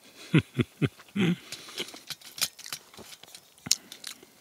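A man eating: four short hummed "mm" sounds in the first second or so, then a run of sharp clicks and scrapes as a wooden spoon works in a tin can of tuna.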